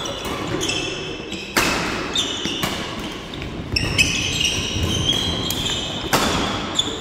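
Badminton rally in an echoing sports hall: racket strokes cracking against the shuttlecock, two of them much harder than the rest, about a second and a half in and near the end. Trainers squeak repeatedly on the wooden court floor.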